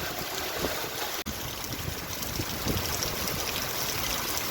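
Heavy rain with wind: a steady rushing hiss of pouring and running water.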